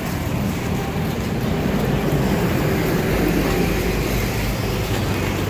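Steady low running noise of a moving vehicle, without clear breaks or single loud events.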